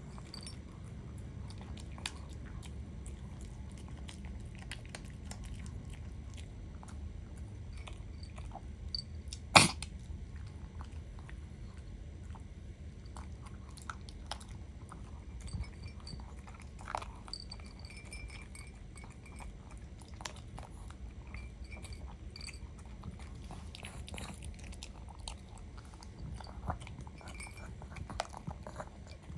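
Long-coat Chihuahua eating dry kibble from a ceramic bowl: scattered small crunches and clicks of chewing and of pellets against the bowl. One sharp, much louder click comes about ten seconds in.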